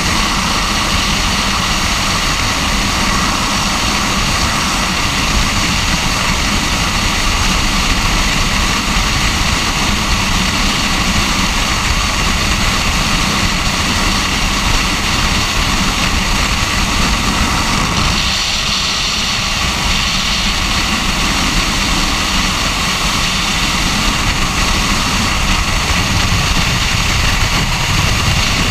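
Loud, steady rush of freefall wind buffeting the microphone of a skydiver's head-mounted camera. Its tone shifts slightly about two-thirds of the way through.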